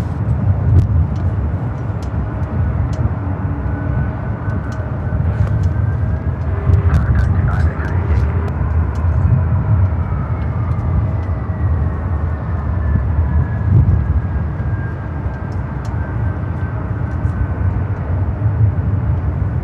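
Jet aircraft engines making a steady low rumble. A faint whine rises for several seconds, then slowly falls away.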